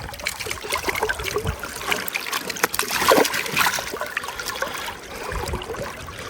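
River water splashing and trickling close by, in small irregular splashes.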